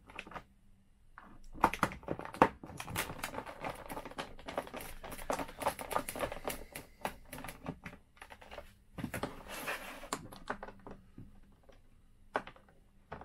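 Rapid, irregular small clicks and plastic rattling of a screwdriver working screws out of a car instrument cluster's plastic housing, with a short scraping rustle about nine seconds in.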